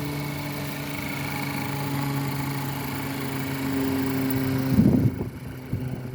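Ford Focus engine idling with a steady hum. Near the end a short loud bump, then irregular knocks and rustling.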